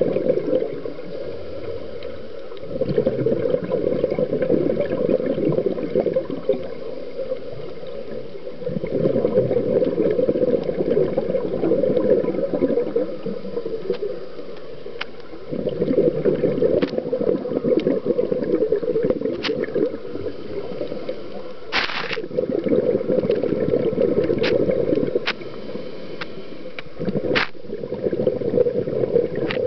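Underwater scuba breathing: a diver's exhaled bubbles bubbling out of the regulator in about five long breaths of several seconds each, with short quieter pauses between them as the diver inhales. A few sharp clicks are heard among the breaths.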